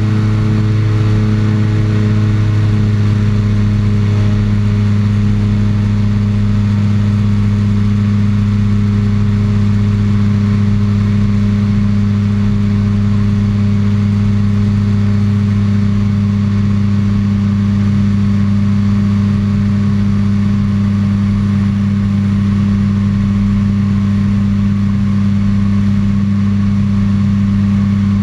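Microlight trike's engine and pusher propeller running at steady climb power, a loud continuous drone. A few higher tones fade out in the first couple of seconds as it settles into the climb.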